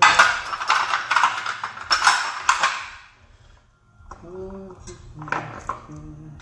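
Steel transmission parts clattering and clinking against each other for about three seconds as they are handled and pulled apart, followed by a few lighter metallic clinks.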